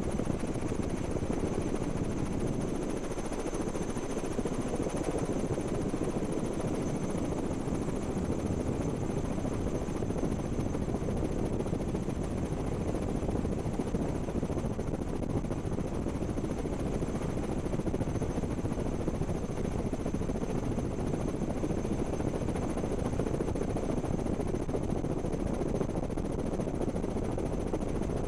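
Steady helicopter rotor and engine noise heard from on board, a constant drone with no change in pitch or level.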